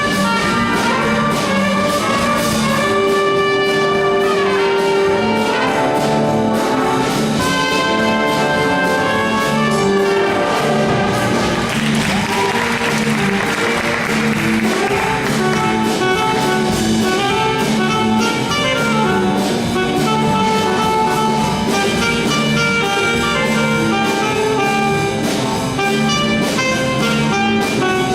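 Junior high school band playing, with brass prominent, at a steady full level.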